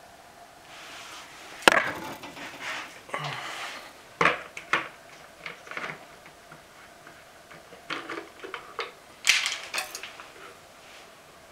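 Irregular dry crackling and sharp clicks in two bouts, the loudest snap about two seconds in and another cluster near the end.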